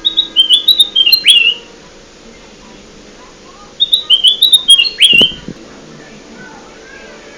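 Kutilang emas bulbul song played as a lure call: two short phrases of quick, stepped whistled notes, each ending in a sharp downward sweep, about three seconds apart.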